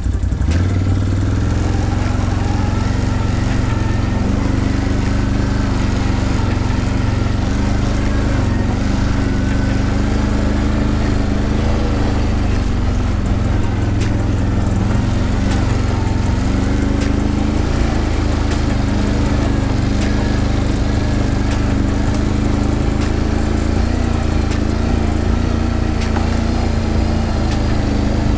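ATV engine running steadily as it drives along a trail, its pitch rising and falling a little with the throttle.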